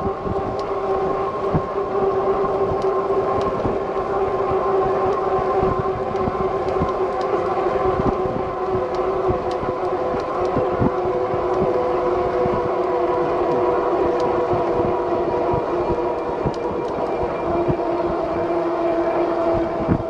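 Lectric XP step-thru e-bike's electric hub motor whining steadily while riding, a set of steady tones that drop slightly in pitch near the end, over wind and road rumble on the bike-mounted microphone.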